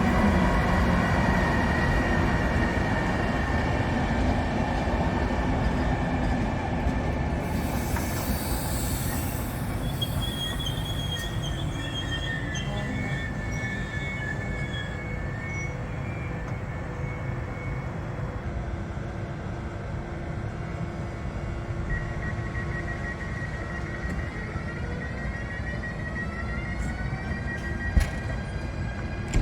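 Passenger train rolling on the rails, its wheels squealing in thin high tones over a steady rumble, with a short hiss about eight seconds in and a sharp knock near the end. The sound slowly fades.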